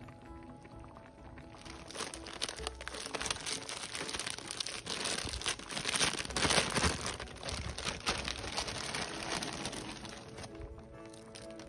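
Thin clear plastic bag crinkling as hands work it open, starting about two seconds in and loudest midway, over soft background music.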